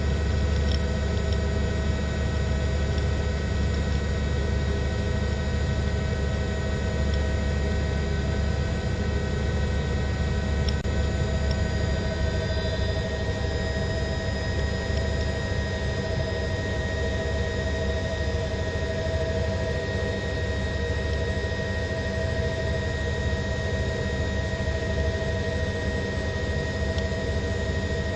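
Steady drone of an aircraft engine: a low rumble under several steady whining tones, unchanging throughout.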